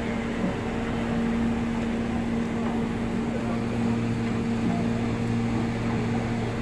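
Steady engine hum at idle, holding constant low tones, with a light hiss of steam leaking from a standing steam locomotive being coaled.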